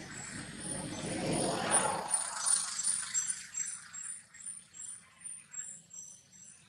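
Insects chirring steadily in high, faintly pulsing tones, under a rushing noise that swells and dies away within the first two seconds.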